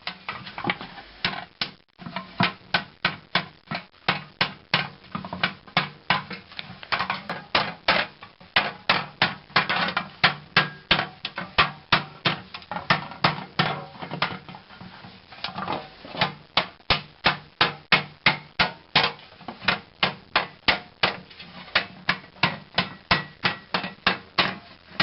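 Steady, rhythmic hammer blows, about three a second, beating a test resonator cone into a rounded shape.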